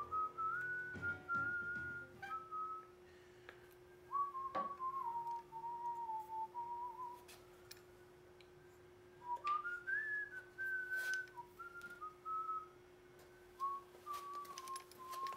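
A whistled tune: one clear melody line wandering up and down in short phrases with pauses between them, over a faint steady hum, with a few light taps.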